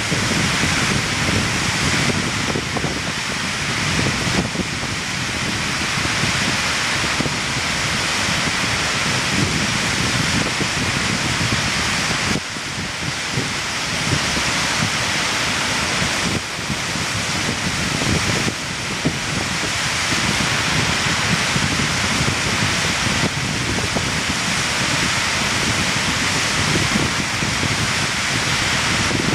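Steady rush of falling water from the Serio torrent and falls, with uneven wind buffeting on the microphone in the low end.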